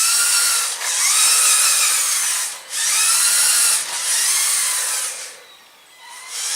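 Electric motors and gear train of a LEGO Technic remote-control rally car whirring in several drive bursts, the whine climbing in pitch as each burst spins up, with a short lull about five seconds in before it starts again.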